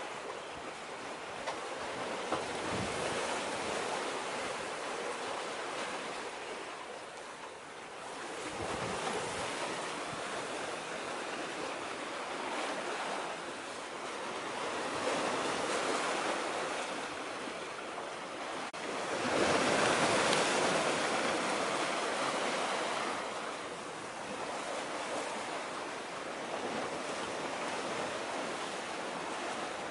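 Small waves washing against the shore: a steady noise that swells and eases every few seconds, loudest about two-thirds of the way through.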